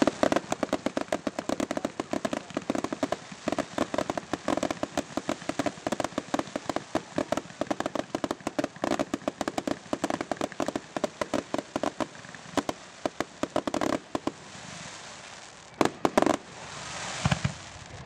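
Aerial firework shells bursting, a rapid stream of many sharp cracks and pops a second for about fourteen seconds. It thins out near the end to a few separate louder bangs and a short hiss.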